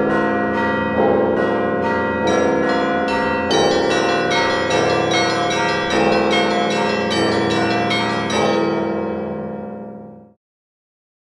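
Church bells ringing. A deep stroke comes about every second and a quarter under quicker, higher bells, and the ringing fades and stops shortly before the end.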